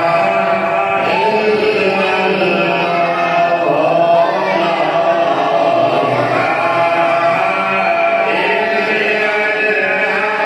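A man's voice singing a hamd, a devotional Urdu hymn in praise of God, into a microphone in a chant-like style, with long held notes and gliding ornaments.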